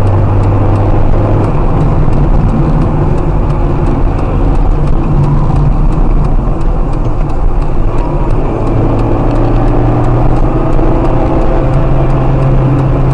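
Car engine and tyre noise heard from inside the cabin at speed, the engine note stepping up twice in the second half.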